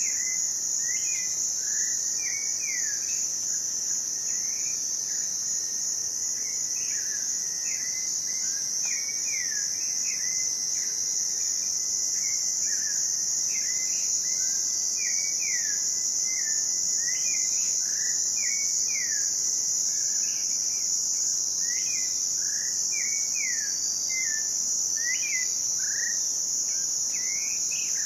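Forest ambience of a dense cricket chorus: a steady, unbroken high-pitched trill. Over it, birds give frequent short calls, quick notes that mostly slide down in pitch, scattered throughout.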